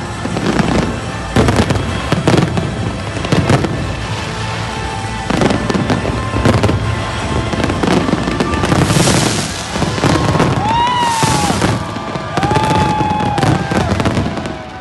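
Aerial fireworks display: a dense run of bangs over continuous crackling. A few wavering, rising-and-falling tones come in during the second half, and the barrage drops off at the very end.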